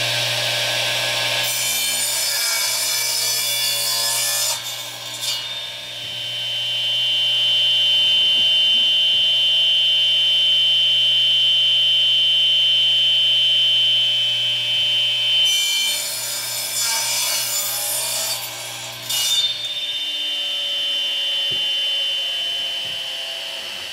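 A 10-inch radial arm saw running, making two crosscuts through 2x4 stud lumber, one about a second and a half in and another about 15 seconds in, with a steady whine between them. After the second cut the motor is switched off and the blade winds down near the end.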